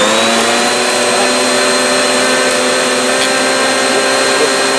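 Eureka canister vacuum cleaner overvolted on 240 volts, its motor running at a steady high whine over a loud rush of air, the pitch levelling off at full speed right at the start.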